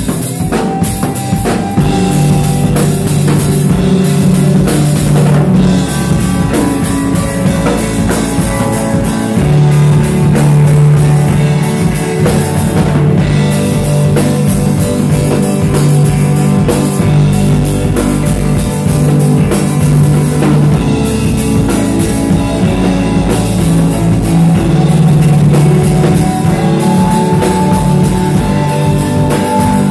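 Live rock band playing loudly: a drum kit keeping a steady beat with bass drum and cymbals under held electric guitar notes.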